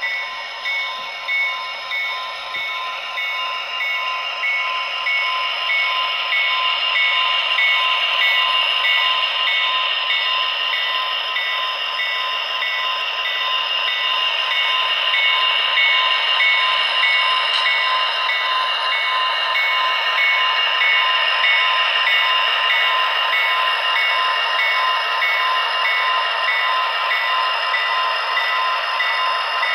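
Tsunami DCC sound decoder in an HO-scale Athearn Genesis SD60I model diesel locomotive, playing its diesel engine sound through the model's small speaker as it runs. Behind the engine sound a bell-like ding repeats at an even pace throughout. The engine sound grows a little louder over the first few seconds.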